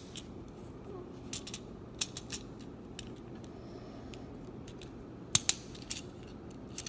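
Plastic Lego pieces clicking and snapping as wheels are pressed onto a brick-built train: scattered sharp clicks, the loudest two close together about five seconds in, over a faint low hum.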